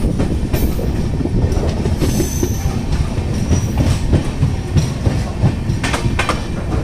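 Passenger train coach running on the rails, heard from on board: a steady low rumble with wheel clatter, brief high thin squeals from the wheels, and a quick run of sharp clicks near the end.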